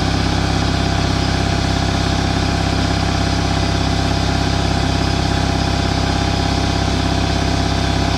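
Ingersoll Rand 60-gallon, 5 hp electric stationary air compressor (model SS5L5) running steadily on its first start, its pump filling the tank with air.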